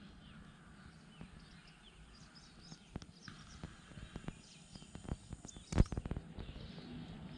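Faint outdoor ambience with small birds chirping here and there. A run of sharp clicks and knocks starts about three seconds in; the loudest comes near six seconds.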